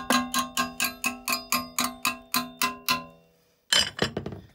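Hammer striking the metal bottom plate of a Kimberly wood stove, about four ringing strikes a second for some three seconds, bending the plate so it will pop out. A short, louder clatter follows near the end.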